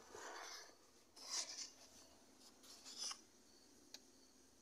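Near silence with a few faint rustles and a soft click near the end: handling noise as the camera is moved.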